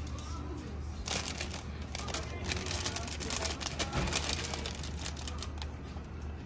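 Clear plastic display bags crinkling and rustling as a hand handles them, a run of quick crackles starting about a second in, over a steady low hum.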